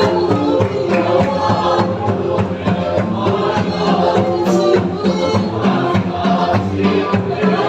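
Group singing of a gospel song with instrumental backing and a steady percussion beat.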